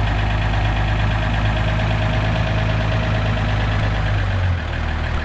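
Truck engine idling steadily just after a cold start; the truck had not been started in a while. About four and a half seconds in, the idle steps down and gets a little quieter.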